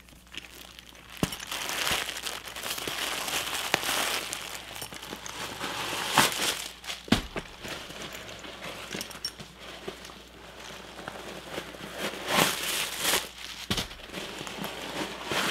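Crinkling and rustling of packing stuffing being pulled out of a new handbag, with a few sharper crackles and knocks scattered through it.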